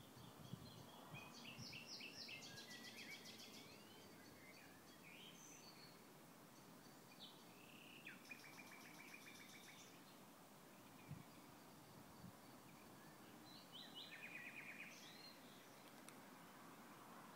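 Faint songbird song: separate phrases of rapid rattling trills and short whistles, a few seconds apart, over a low steady hiss.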